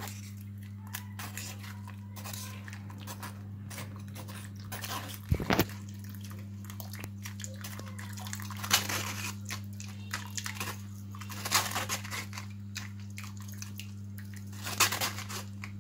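A spoon scraping and pressing cooked tamarind pulp through a steel mesh strainer, with liquid dripping into a glass bowl and a few sharper clinks of metal on the strainer. A steady low hum runs underneath.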